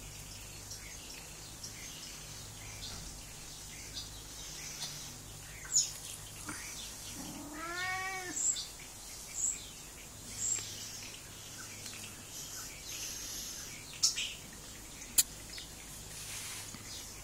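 Domestic cat giving one drawn-out meow about halfway through, its pitch rising then falling. A few sharp clicks come before and after it.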